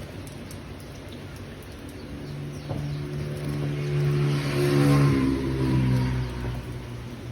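A motor vehicle passes by, its engine rising to a peak about five seconds in, then dropping in pitch as it moves away.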